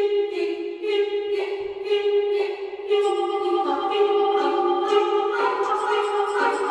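Background music with sustained choir-like vocal tones over a steady pulse about twice a second, growing fuller about three seconds in.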